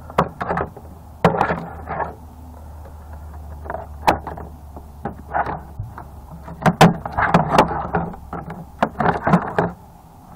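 Wire snips clipping wires inside a battery backup unit while its plastic case is handled: a run of sharp clicks and knocks with rustling. Under them a low steady hum weakens about six seconds in.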